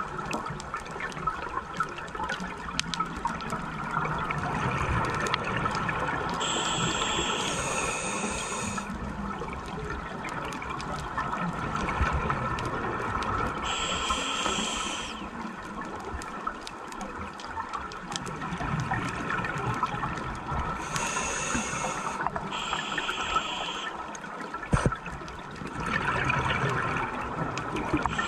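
Scuba regulator breathing heard underwater: a hissing inhalation about every seven seconds, four in all, with bubbling exhalations in between.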